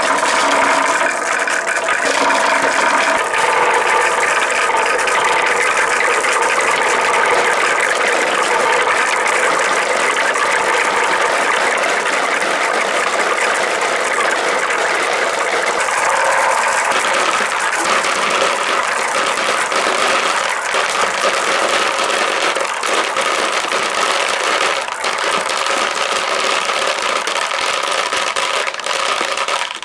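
Lots of marbles rolling and clattering down a marble run of wooden slopes, a dense continuous rattle of many small clicks that starts to fade right at the end.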